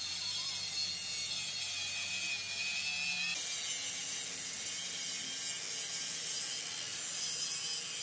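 Handheld angle grinder with an abrasive disc cutting into the steel of a truck chassis frame, a steady high hiss with a thin whine over it. The sound changes abruptly about three seconds in as the grinder works a steel bracket instead.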